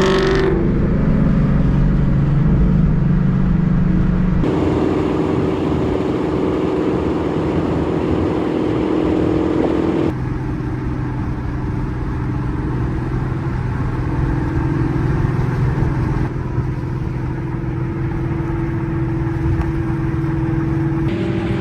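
Car engine running steadily at a loud level, with its pitch and tone stepping abruptly about 4, 10 and 16 seconds in, where separate clips are joined.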